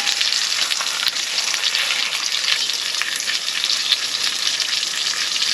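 Biscuit dough and ham frying in hot grease and butter in a pan, a steady sizzle with fine crackling pops.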